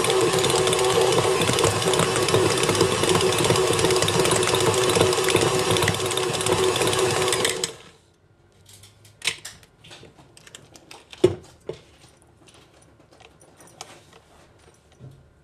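Electric stand mixer running steadily, kneading bread dough with its dough hook, then switched off a little past halfway. After it stops come scattered light clicks and knocks as the dough is handled in the steel bowl, with one sharp knock a few seconds after the motor stops.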